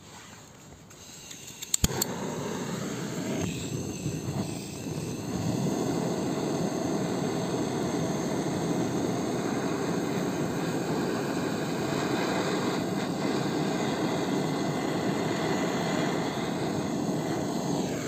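Butane gas torch lit with a few sharp clicks about two seconds in, then its flame jetting with a steady roar that grows louder about five seconds in.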